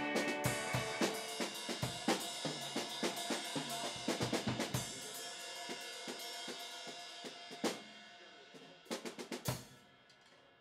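Rock band playing: a drum kit (snare, bass drum, cymbals) over held guitar chords. The music tapers off in the last few seconds with a quick run of drum hits and a final crash that rings out.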